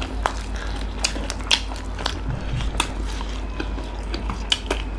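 Close-miked eating of fried chicken wings: irregular crisp bites and chewing clicks, over a steady low hum.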